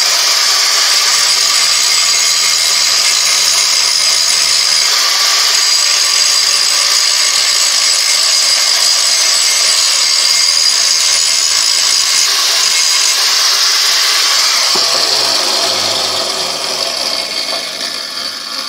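Angle grinder with a grinding wheel grinding the high-carbon steel of an old metal file, a loud steady high-pitched grinding hiss. About 15 seconds in the grinder is switched off and spins down, its pitch falling away.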